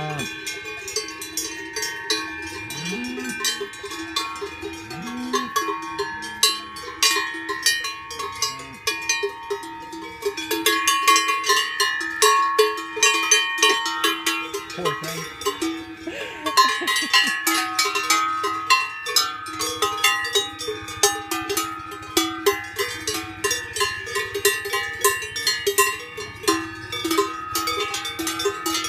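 Many cowbells on cattle clanking and ringing without pause as the cows walk and graze, several bells of different pitch sounding at once in an irregular jangle. It grows denser and louder from about ten seconds in.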